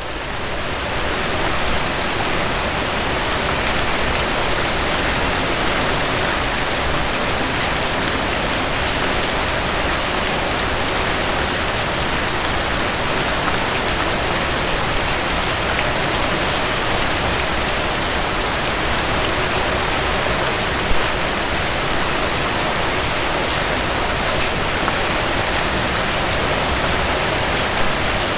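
Heavy rain falling steadily in a dense, even hiss, swelling up over the first couple of seconds, with a few single louder drop hits later on.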